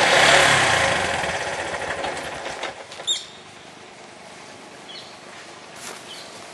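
Three-wheeler auto-rickshaw engine running with a rapid even beat, loud at first and fading away over about three seconds. A few short high chirps follow in the quieter background.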